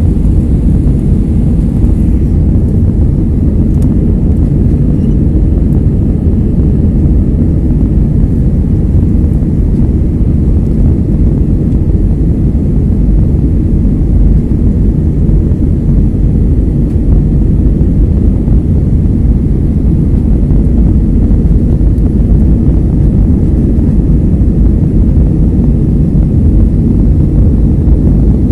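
Jet airliner cabin noise: the steady, low rumble of the engines and rushing air, heard from a window seat in flight.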